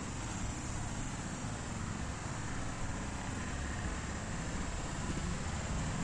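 Steady outdoor background noise: a low, even rumble with a hiss above it and no distinct events.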